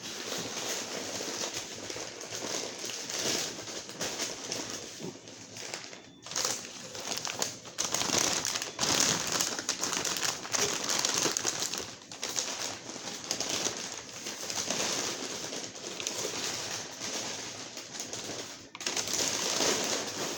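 Packaging being handled while a fish shipment is unboxed: plastic and wrapping crinkling and rustling in irregular surges with a few short pauses.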